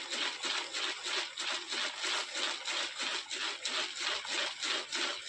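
Firework star pellets tumbling and sliding inside a capped jar swirled by hand, a rhythmic swishing rattle about three times a second. The stars are being rolled in waterfall composition to coat them.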